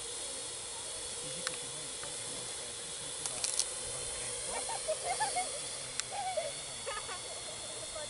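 Parrot AR.Drone 2.0 quadcopter hovering: a steady propeller hiss with an even motor whine. A few clicks and short chirps or squeaks come in the second half.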